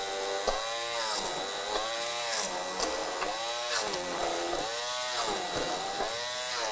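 Handheld immersion blender pureeing cooked plantain slices in a pot. The motor's pitch sags and recovers about every second and a half as it works through the chunks, with a few sharp clicks along the way.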